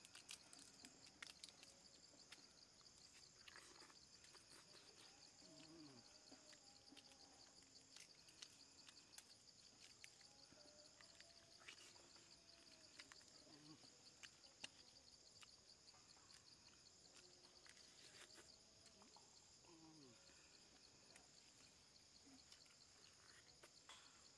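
Faint forest insect chorus: a steady, high-pitched trill with a fine pulse, with scattered soft clicks over it.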